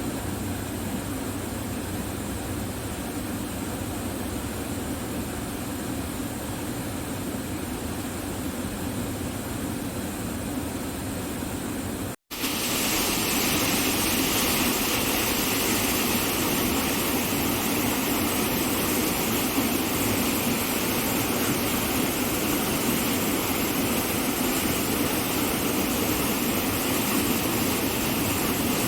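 Rushing water making a steady noise. About twelve seconds in it cuts out for a moment, then comes back louder and brighter.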